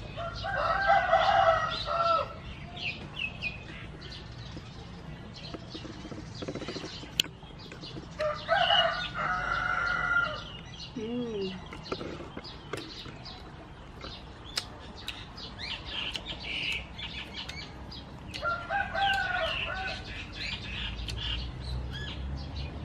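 A rooster crowing three times, each crow lasting about a second and a half to two seconds, with small birds chirping throughout.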